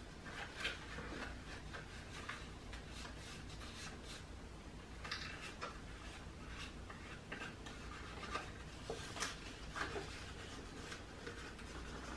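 Paper being handled, rubbed and pressed down by hand as glued pieces of paper are smoothed onto a folded paper cake slice: soft, scratchy rustling with a few faint taps.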